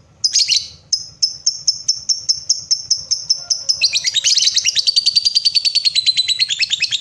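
Lovebird calling: sharp high chirps about three a second that, about four seconds in, speed up into a fast, continuous chattering trill, the long 'ngekek' song.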